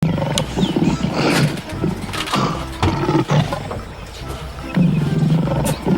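Cows mooing: several low calls in a row, the longest lasting about a second near the end.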